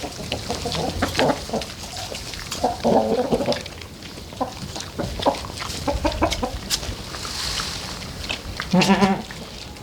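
Farm animals calling: several short calls, then a louder, wavering call near the end, with scattered small clicks and taps throughout.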